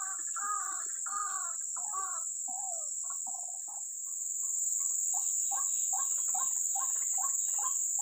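White-breasted waterhen (ruak-ruak) calling over and over, about two calls a second, breaking off briefly about four seconds in and going on in a quicker run of shorter notes. A steady high-pitched insect drone sounds throughout.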